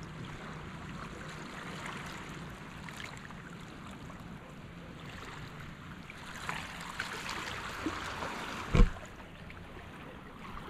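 Calm shallow sea water sloshing and lapping, with faint trickles and small splashes. There is one dull thump near the end.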